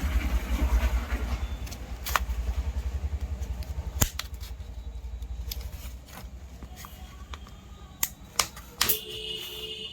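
Hands opening a Jio Bharat feature phone's plastic casing: a low rumble of handling for the first few seconds, then fading, with a handful of sharp plastic clicks and a brief high squeal near the end.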